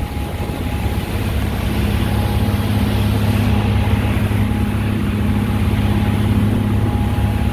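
Cabin cruiser's engines running steadily under way, a low drone with a faint thin steady tone above it, growing a little louder over the first couple of seconds.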